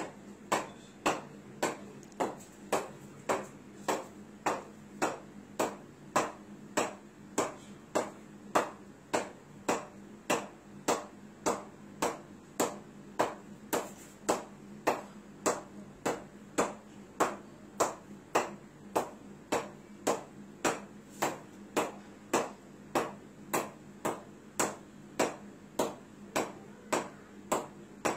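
A cricket ball bounced up again and again off the face of a cricket bat, a sharp knock with a short ring, evenly spaced a little under twice a second.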